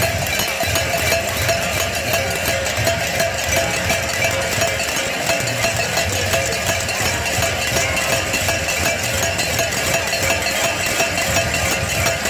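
Many cowbells rung by a stadium crowd, a dense, steady clanging with no let-up.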